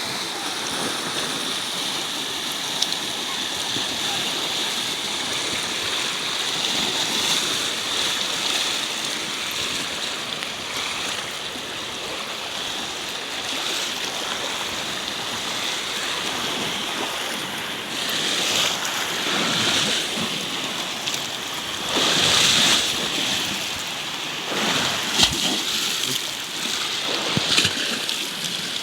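Sea waves washing against the shore: a continuous watery hiss with a few louder swells of breaking water in the second half.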